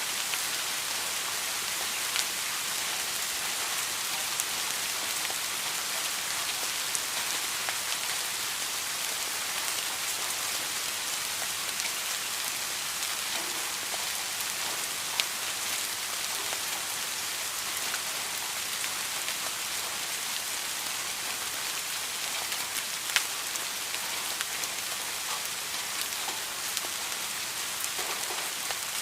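Steady rainfall hissing on a surface, with scattered individual drops ticking louder now and then, the sharpest about halfway through and again about three-quarters through.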